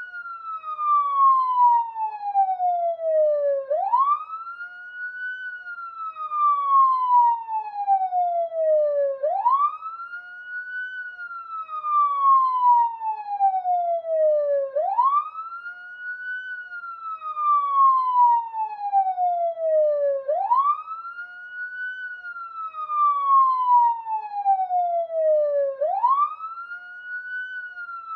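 Police siren wailing in a long, even cycle. Each cycle sweeps up quickly in pitch and then slides slowly back down, repeating about every five and a half seconds.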